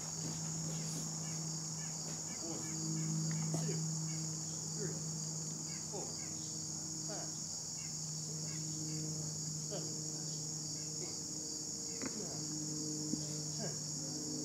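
Steady, high-pitched chorus of insects chirring without a break, with a low steady hum underneath and a few faint scattered ticks.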